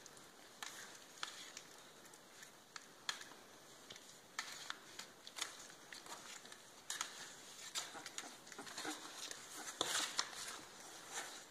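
Two Labrador puppies scuffling in a newspaper-lined cardboard box: faint scattered scratches, taps and paper rustles from their paws, busiest about ten seconds in.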